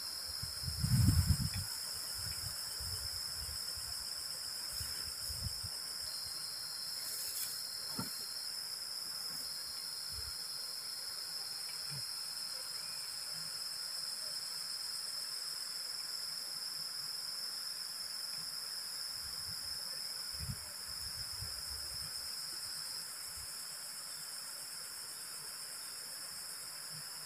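Steady night chorus of crickets and other insects, with a high buzzing tone that switches on and off. Wind buffets the microphone in short low rumbles about a second in and again around twenty seconds in.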